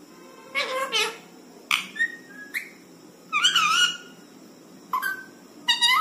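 Rose-ringed parakeet (Indian ringneck) giving a string of short calls, about seven separate bursts, their pitch bending up and down.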